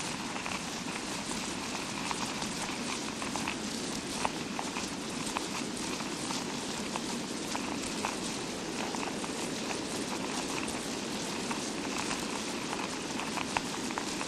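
Imitation rain made as a sound effect rather than recorded from real rain: a steady hiss scattered with many small, irregular ticks and pops, like drops pattering, a few of them louder.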